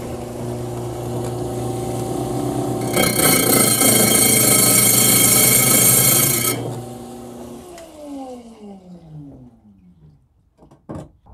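Hi-Tech Diamond 7-inch lapidary trim saw running at 3,250 RPM with a steady motor hum. About three seconds in, the diamond blade bites into an aluminum oxide dressing stick, giving a loud, high grinding whine for about three and a half seconds before the stick is pulled back. Near the end the motor hum falls in pitch as the blade spins down.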